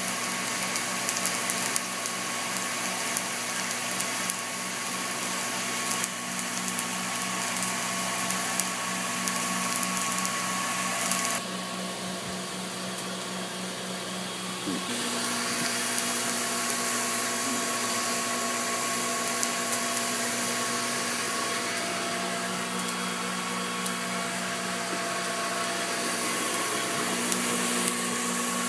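Hand-made air coffee roaster running steadily: a blower's hiss over a machine hum, with scattered sharp clicks through the first ten seconds or so. A little past a third of the way in the hiss drops off, and it comes back a few seconds later.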